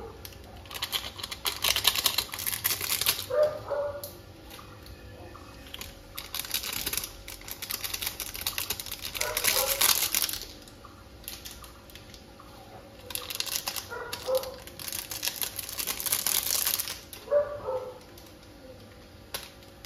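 Maggi masala seasoning packet rustling as the powder is shaken out onto noodles in a kadai, in several bursts of a second or two each with quieter gaps between.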